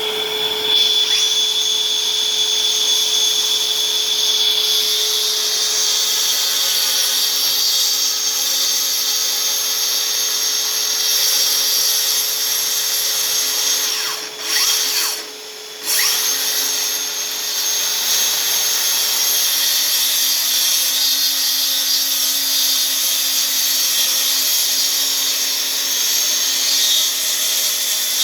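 Bosch GKT 18V-52 GC cordless plunge saw running, with a Bosch GAS 18V-L cordless vacuum drawing dust through it. The whir drops out briefly about halfway through, then carries on.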